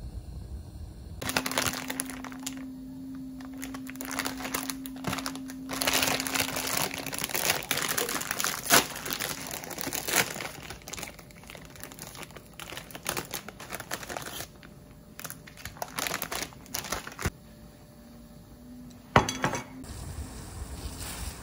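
Handling noises: rustling and crinkling mixed with clinks and knocks of things being moved about. A steady hum runs under the first few seconds. The sharpest knocks come about nine seconds in and again near the end.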